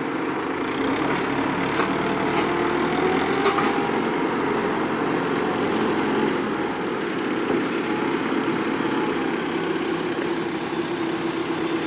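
Heavy truck engine running steadily, with two short sharp clicks about two and three and a half seconds in.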